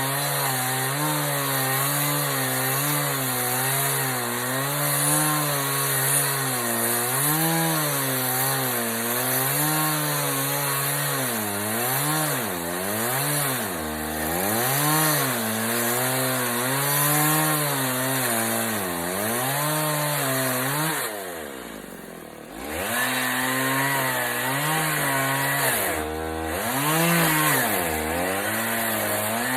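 Chainsaw cutting wood, its engine pitch repeatedly sagging and rising again as the chain bogs down in the cut and clears. About two-thirds of the way through it drops back toward idle for a moment, then revs up and cuts on.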